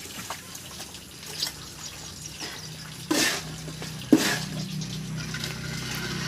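Muddy water sloshing and trickling around men wading in a flooded pit while laying concrete hollow blocks, with two sharp knocks about three and four seconds in. A steady low hum runs underneath.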